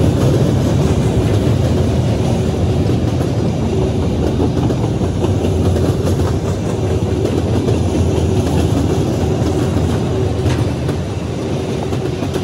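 Freight train cars (covered hoppers and tank cars) rolling past close by: a steady rumble of steel wheels on the rails with clattering over the rail joints.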